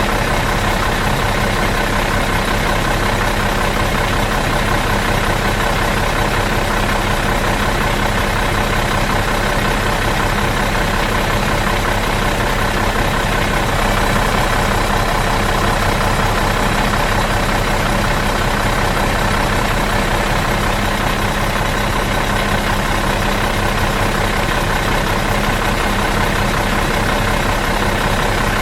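Bus engine idling in neutral, a steady, even drone that does not change.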